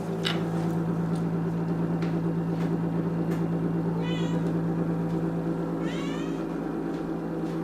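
Domestic cat meowing to beg for food: a short mew about four seconds in, then a longer meow about two seconds later that rises and falls in pitch. Both sit over a steady low hum.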